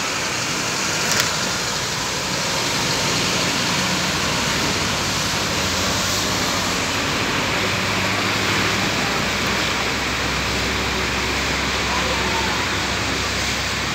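Steady rush of moving floodwater around people wading and pushing a small boat, with a single short click about a second in.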